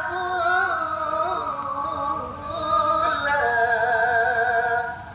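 A solo voice singing long, wavering held notes with melismatic ornaments. One phrase ends about three seconds in, and a higher phrase follows and fades out near the end.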